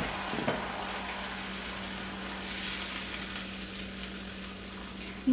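Tomato juice sizzling and bubbling in a hot frying pan over garlic fried in oil, a steady hiss as the sauce comes to the boil. A silicone spatula stirs it in the second half.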